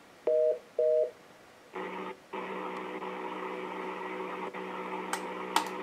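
Yealink T31 IP phone giving two short two-pitch beeps, its auto-answer warning tone as it picks up an incoming call on speakerphone. A steady buzzing tone then follows over the open call line, with one brief break.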